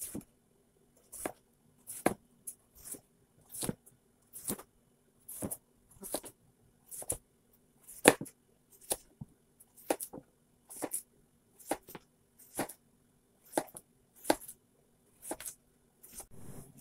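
Chef's knife slicing through a zucchini, each cut ending in a knock on a plastic cutting board, at a steady pace of a little more than one cut a second. There is a short rustle near the end.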